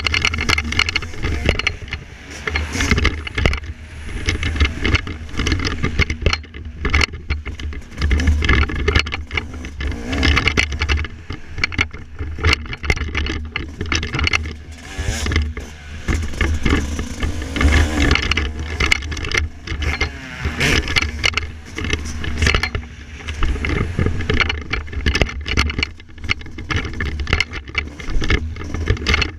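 Yamaha YZ250 two-stroke motocross engine revving up and falling back again and again as the bike is ridden hard, with heavy wind buffeting on the helmet-mounted camera's microphone.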